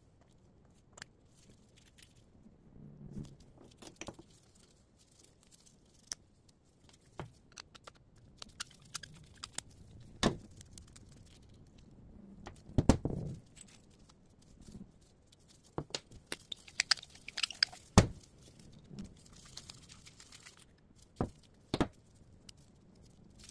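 Metal parts of an inert mortar fuze and fin assembly being handled and worked with pliers: scattered clicks, taps and knocks, with a cluster of small clicks and a sharp knock about 18 seconds in, the loudest.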